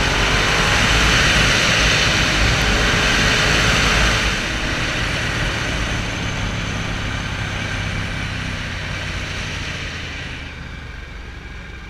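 Motorcycle engine running while riding, with wind rushing over the microphone. The wind noise is loudest for the first four seconds, then drops, and the sound grows quieter toward the end.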